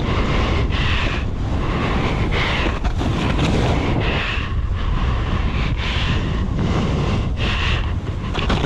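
Wind buffeting the microphone during a fast splitboard run, with the board hissing through snow in repeated surges that come roughly once a second.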